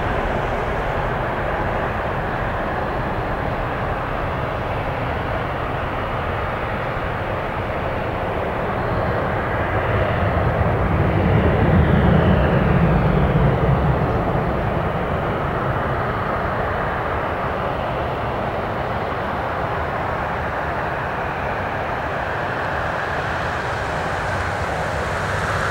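CFM56 turbofan engines of an Airbus A320 at takeoff thrust as the airliner lifts off and climbs out: steady jet noise that swells about ten seconds in to a deep low rumble at its loudest, with a faint falling whine, then eases back to a steady level.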